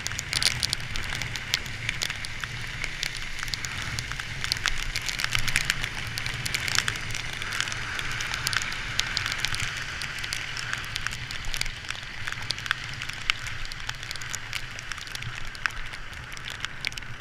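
Raindrops hitting a moving camera, a dense run of sharp irregular ticks, over a steady hiss from the wet road and a low rumble.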